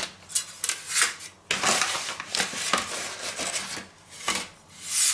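Irregular rubbing and scraping with a few light knocks as a metal pizza peel is brought in and handled beside a wooden board.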